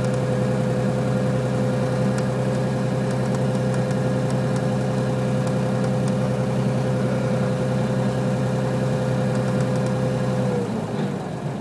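Light aircraft engine running steadily, then dropping in pitch and level slightly about ten and a half seconds in.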